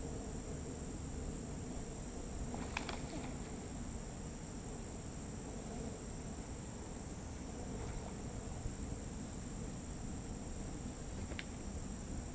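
Steady chorus of insects, crickets by its sound: a constant high trill, with a higher buzzing that switches on and off every couple of seconds. Two faint clicks stand out, about three seconds in and near the end.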